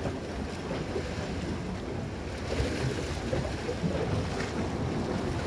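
Small Black Sea waves lapping and washing against the rocks of a breakwater, with a fuller splash a little past halfway. Wind rumbles on the microphone underneath.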